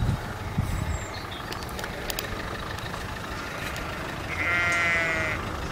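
A sheep bleats once, a single wavering call of about a second near the end, over a steady low rumble.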